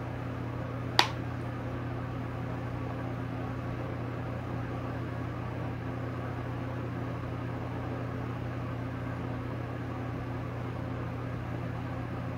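Steady low hum of background room noise, like a running fan or appliance, with one sharp click about a second in.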